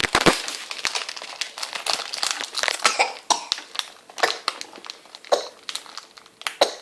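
A pet coughing and hacking in a rapid, irregular series of short bursts, like something caught in the throat; the owner says he has only choked and is fine.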